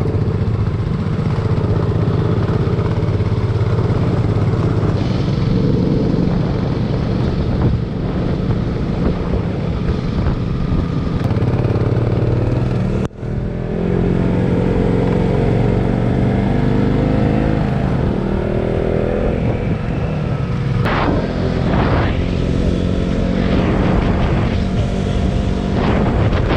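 Motorcycle engine running while riding, heard from the rider's own bike, its pitch rising and falling with the throttle.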